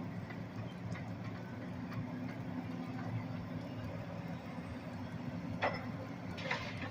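Diesel engine of heavy demolition machinery running steadily at a distance, with two sharp knocks near the end.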